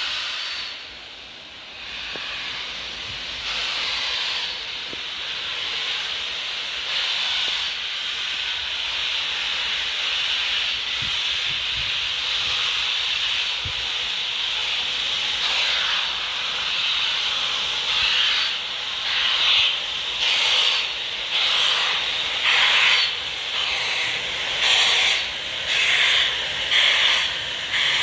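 Steam locomotive Britannia, a BR Standard Class 7 Pacific, pulling away under steam. A steady hiss of steam gives way, about two-thirds of the way through, to slow, evenly spaced exhaust chuffs about one a second that grow louder.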